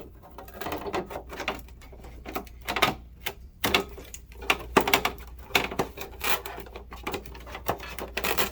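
Irregular clicks, taps and light knocks of mobility scooter parts being handled and fitted during reassembly.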